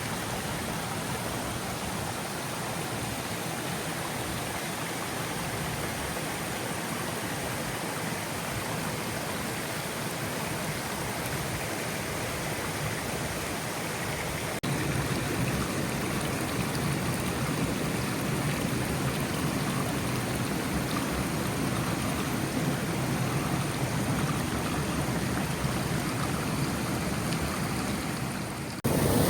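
Water rushing in a waterfall and its stream, a steady noise. About halfway through it jumps suddenly louder and deeper.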